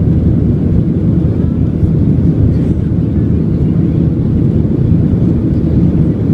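Airplane engines and airflow during takeoff, a steady low drone with no change in level.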